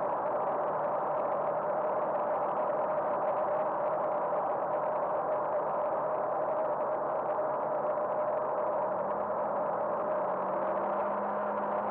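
Cirrus SR20's piston engine and propeller droning steadily, heard inside the cabin, with a constant mid-pitched tone over a broad rush of noise. A lower note steps up slightly in the last few seconds.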